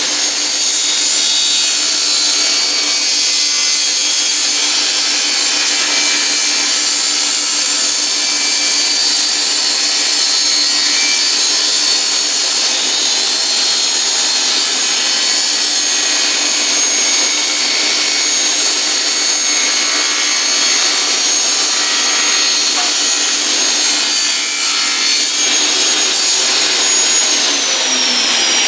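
Electric power saw running and cutting through wood, its motor giving a steady high whine; near the end the motor switches off and winds down in a falling whine.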